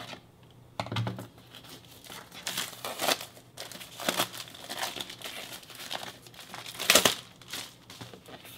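Clear plastic shrink wrap being slit with a knife and pulled off a cardboard box, crinkling and tearing in an irregular run of rustles, loudest near the end.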